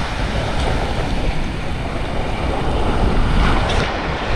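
Water rushing and splashing around a camera riding down a water slide, with wind buffeting the microphone; the splashing grows louder about three and a half seconds in as the rider shoots out into the splash pool.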